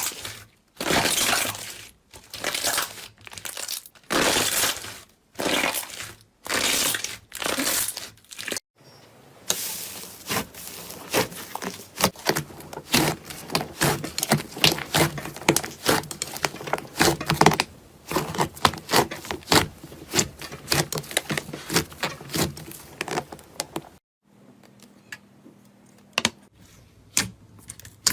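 Repeated crinkling and crackling, first as separate bursts about once a second, then as a dense, continuous crackle of many small clicks that drops to a few scattered clicks over a low hum near the end.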